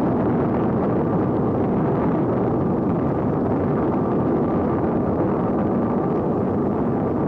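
Cartoon rocket-launch sound effect: the steady rushing noise of a rocket engine firing as the rocket lifts off, holding an even level throughout.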